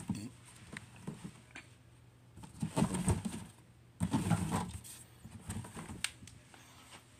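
Cardboard box being handled and turned, scuffing and rubbing in a few irregular bursts, the loudest about three and four seconds in.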